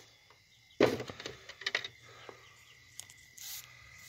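Close handling noise at a woven-basket hen's nest lined with dry straw. A sharp knock comes about a second in, then a run of light crackling rustles and a few clicks.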